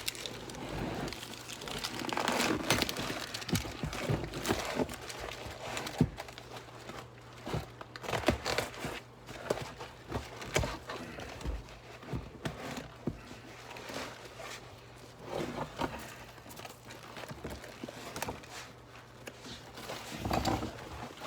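Vinyl motorcycle seat cover crinkling and rustling as it is worked off the seat, with scattered sharp clicks and taps.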